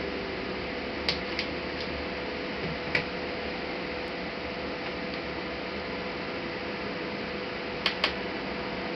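A few small, sharp clicks of parts being handled during laptop disassembly: a pair about a second in, one near three seconds and a quick double click near the end. Under them runs a steady hiss with a faint hum.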